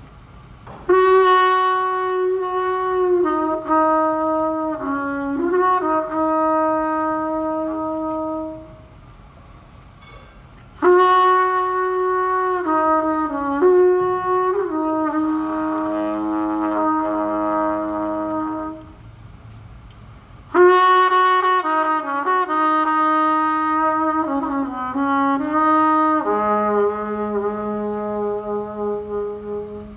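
Solo jazz trumpet playing three slow melodic phrases, each a few seconds long with held notes, separated by short pauses. A lower held note joins underneath in the second and third phrases.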